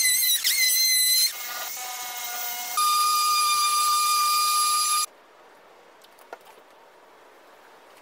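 Electric power tools running: a wood router's high whine, dipping briefly in pitch as it cuts, then a random orbit sander's steady whine. They stop abruptly about five seconds in, leaving only faint background and a single light tap.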